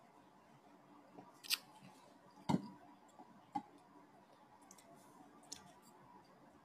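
Four short, sharp clicks over faint room tone, the loudest about two and a half seconds in.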